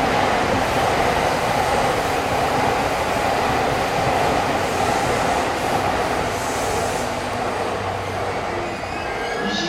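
Electric commuter train running along the platform, a steady loud noise of wheels on rail that eases slightly near the end.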